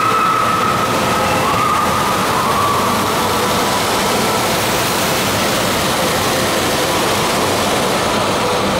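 Steady rushing water of a log flume channel and waterfall, with faint drawn-out tones over it in the first few seconds.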